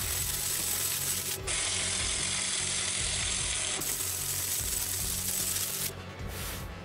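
Semi-automatic CO2 welding arc crackling and spattering steadily as it lays a pass of a multi-pass fillet weld on thick steel plate. The arc stops about six seconds in.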